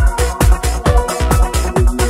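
Electronic dance music with a steady kick drum about two beats a second under sustained synth notes.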